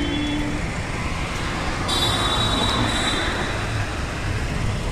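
Street traffic noise: a steady rumble of road vehicles, with a brief high-pitched tone about two seconds in.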